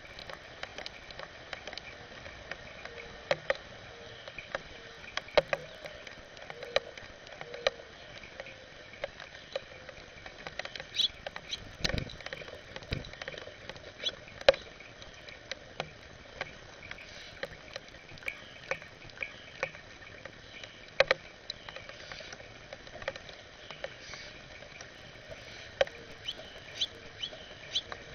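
Light rain pattering: irregular sharp taps of raindrops on the glass-and-metal bird feeder over a steady hiss, with a dull low thump about twelve seconds in.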